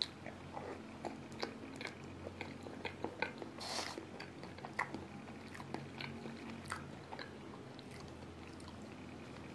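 A man quietly eating soft black rice pudding close to the microphone: faint chewing and small wet mouth clicks, with a short breathy hiss just under four seconds in.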